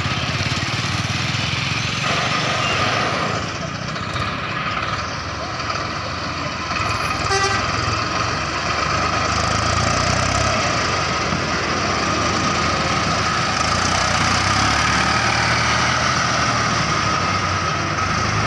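A 50 HP diesel tractor running steadily under load as it pulls a fully loaded sugarcane trailer past, mixed with road traffic. A vehicle horn toots briefly about seven seconds in.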